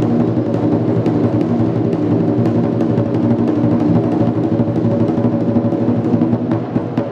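A large Chinese barrel drum is beaten with two wooden sticks in a fast, dense roll, its head ringing under the strokes. Near the end the roll thins into separate strokes.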